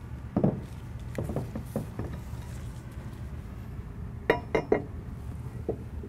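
Metal carriage plate being set down and settled onto ball-rail runner blocks: a dull knock, a few light clicks, then a quick run of three ringing metal clinks about four seconds in and a softer one near the end.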